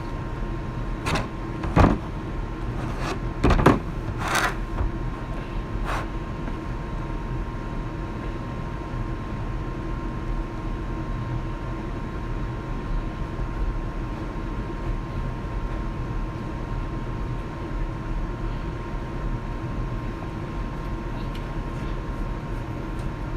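Steady room hum with a thin high whine. A few knocks and clicks come in the first six seconds, the loudest about two and three and a half seconds in.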